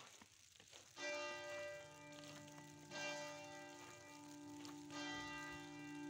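A church bell tolling: three strikes about two seconds apart, each one ringing on into the next.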